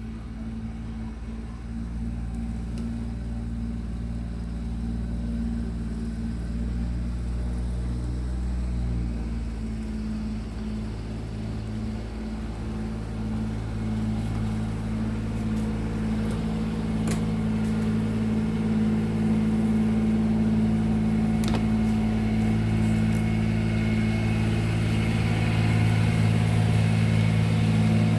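Steady low electrical hum with several even overtones, growing gradually louder, with a few faint clicks after the middle.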